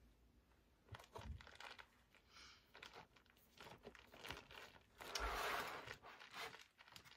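Items being packed and pressed by hand into a full plastic shoebox: faint rustling and crinkling with light clicks and knocks. The longest, loudest rustle comes about five seconds in.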